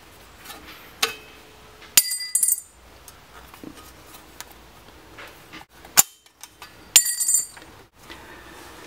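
Sheet-metal knockouts in a spa disconnect's cover being worked loose and snapped out. There are small clicks, then a sharp metallic snap with a brief ring about 2 s in and another near 7 s in.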